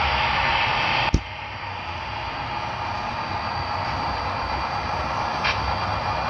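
HO scale model train running along the track, a steady hissing and rumbling running noise. A sharp click about a second in, after which it is quieter and slowly builds again, and a faint tick near the end.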